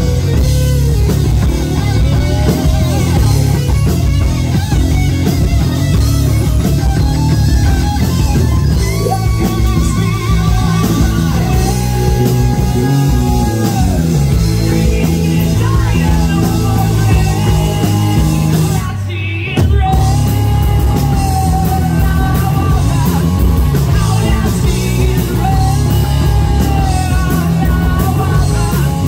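Live rock band playing loud: distorted electric guitar, bass and drums, with a singer belting into the microphone. About nineteen seconds in the band stops for a moment, then comes back in.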